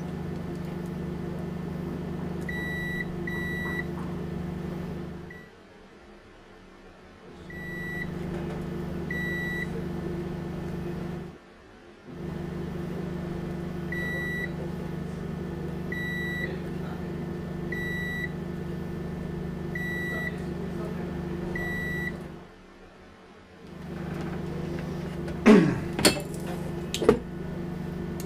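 Felicity IVEM5048 solar inverter humming steadily while its buzzer sounds short high beeps, first in pairs, then about every two seconds: the alarm for fault code 03, bus soft start fail. The hum cuts out briefly three times, and a few sharp clicks come near the end.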